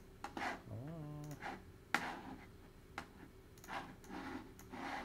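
Sharp computer mouse clicks, two of them about a second apart, with a short hum from a voice about a second in and soft breaths.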